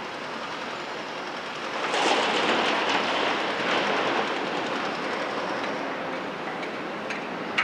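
Volvo EC300 excavator tipping demolition rubble from its bucket into a dump truck's steel body. A loud rattling clatter of debris starts about two seconds in, over the steady running of the machinery, and slowly eases off.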